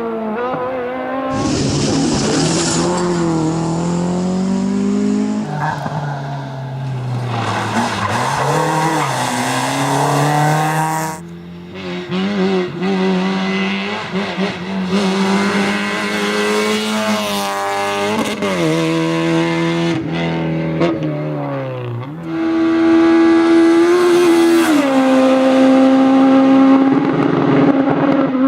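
Rally car engines at high revs, the pitch climbing under acceleration and dropping at each gear change, with the sound switching abruptly several times from one car to another. Some tyre squeal. The loudest stretch is a sustained high engine note in the last few seconds.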